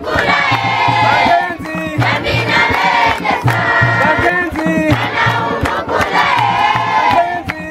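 Crowd of women, children and men singing a traditional welcome song together, with rhythmic hand clapping.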